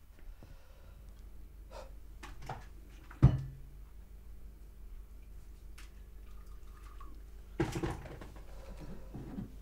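A kettle being handled on a kitchen counter: light clicks and clinks, one sharp knock about three seconds in, and a short rush of water being poured near the end, over a steady low hum.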